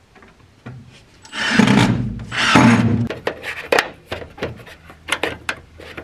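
Hand work on steel barn-door latch hardware bolted to a wooden door frame: two loud rough scrapes about a second and a half and two and a half seconds in, then a run of sharp, irregular metal clicks and clinks as a wrench works the nut on the latch bolt.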